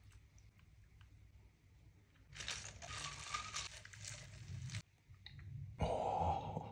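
Ice cubes rattling and clicking against a plastic cup as an iced coffee is stirred with a straw, starting a little over two seconds in and stopping about two and a half seconds later. A short, louder burst of noise follows near the end.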